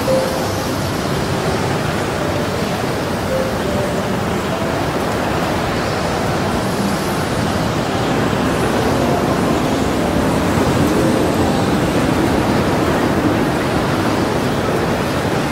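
Steady rush of wind and choppy waves on open water, an even noise with no breaks.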